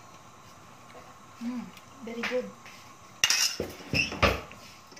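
Metal slotted spatula knocking and scraping against a stainless steel frying pan while stirring a thick coconut-milk sauce, with a cluster of loud clanks about three seconds in.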